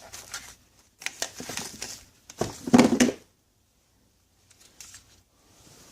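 Plastic clicks, scrapes and crinkling from a car power-window switch assembly being handled and taken apart, in three bursts, the loudest about two and a half to three seconds in, then a few faint ticks.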